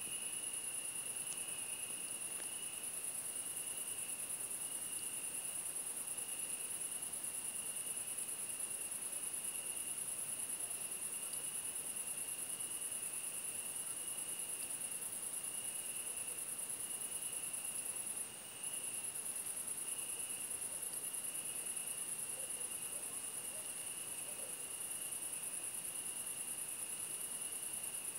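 Crickets singing in continuous trills: a strong, very high-pitched steady trill over a fainter, lower one. The high trill breaks off for a moment about two-thirds of the way through.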